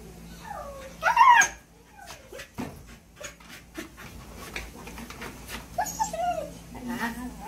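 Pregnant Siberian husky whimpering and whining: several short wavering whines, the loudest a sharp rising cry about a second in, and more whines near the end, with scratching and crinkling of shredded cardboard as she shifts about in between. The whining goes with the restlessness of a dog close to giving birth.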